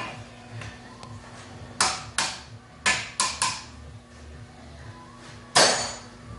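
A series of sharp metallic clanks and knocks from tools and brake parts during front brake pad work: five in quick succession, then a louder one near the end.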